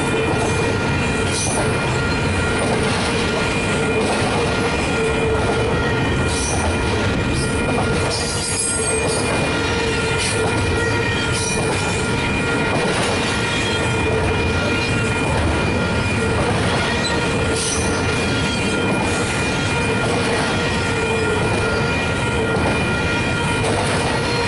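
Double-stack intermodal freight train rolling past: steady rumble of steel wheels on rail, with a sustained high-pitched wheel squeal held throughout and occasional clacks as the cars pass.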